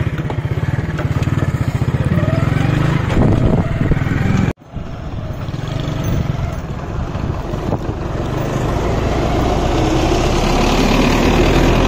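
Motorcycle engine running steadily while riding, with rushing wind and road noise. The sound breaks off briefly about four and a half seconds in, then returns with the wind noise and a lower rumble stronger.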